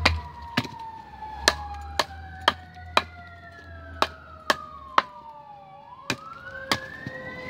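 A Benchmade Bushcrafter fixed-blade knife chopping into a stick, with sharp strikes about two a second. Under the strikes, an emergency-vehicle siren wails, rising and falling.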